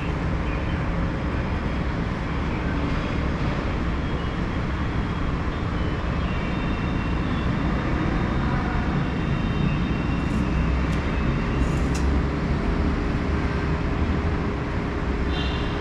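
Steady low rumble of road traffic, with a few faint thin high tones about halfway through.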